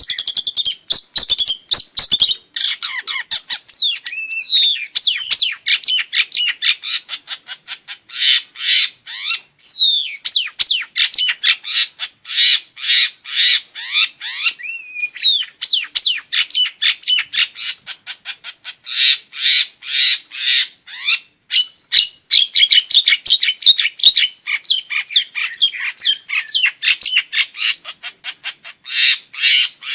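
A long-tailed shrike (cendet) singing a fast, unbroken chatter of short, harsh notes, several a second, mixed with a few rising and falling whistles.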